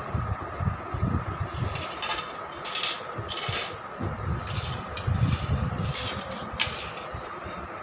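A stainless steel plate scraping and rattling on a tiled floor as a hand pushes it, in several short scrapes, with low thumps and a steady faint hum underneath.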